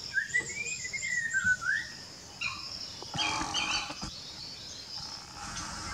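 Wild birds calling in woodland: a whistled, warbling phrase for about the first second and a half, then shorter high calls about three seconds in. A steady high buzz runs underneath.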